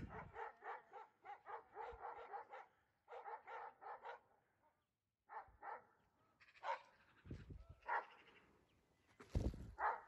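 Livestock guardian dogs barking in the distance at an animal they have cornered in the brush, which the filmer takes for a bear. The barks come several a second in a quick run for about four seconds, stop briefly, then come singly and in pairs.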